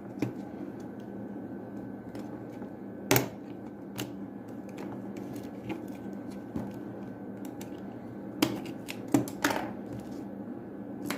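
Scattered small sharp clicks and knocks of plastic parts being handled as an opened computer mouse is taken apart, the loudest about three seconds in and a cluster near the end, over a steady low hum.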